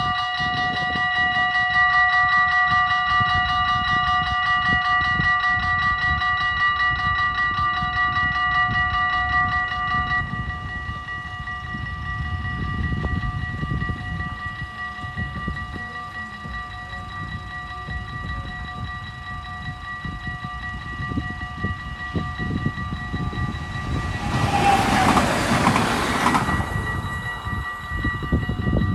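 Level crossing warning bells ringing steadily, dropping to a softer level about ten seconds in with the barriers down. Wind gusts rumble on the microphone, and about three-quarters of the way through a train rushes past for two to three seconds.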